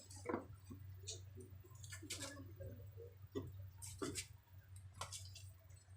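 Faint, scattered light clicks and taps, like small objects being handled, over a steady low hum.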